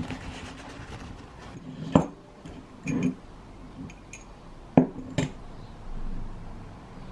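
Glass swing-top jar with a metal wire clasp handled on a wooden cutting board: about four short knocks and clinks, two sharp and two duller.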